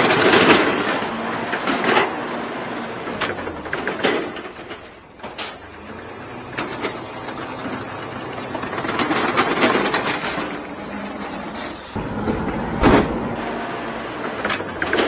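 Ladder-lift truck's boom and lift mechanism running under the engine's steady hum, with knocks and clanks at irregular intervals, the loudest about thirteen seconds in.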